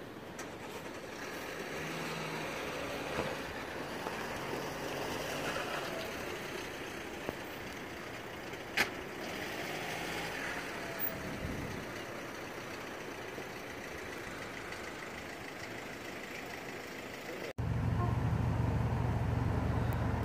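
Steady outdoor background noise of traffic and wind, with a single sharp click about nine seconds in. Near the end it cuts abruptly to a louder, steady low rumble.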